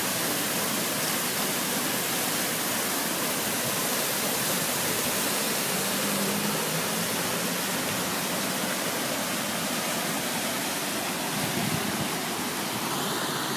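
Brown stormwater rushing down a concrete canal, with a drain outlet gushing into it: a steady, unbroken rush of water.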